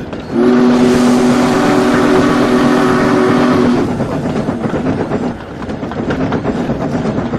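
A steam train whistle sounding one steady chord for about three and a half seconds, then the noisy rumble and rapid clatter of a train running on.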